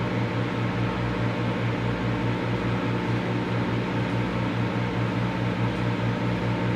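Microwave oven running: a steady electrical hum with a fast regular pulse, under the whir of its fan.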